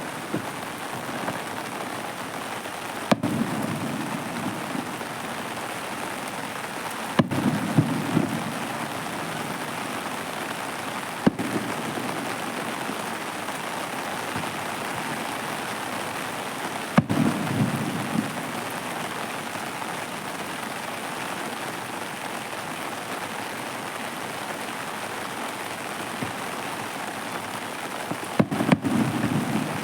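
Fireworks shells bursting: about five sharp bangs several seconds apart, each followed by about a second of low rumbling, over a steady hiss.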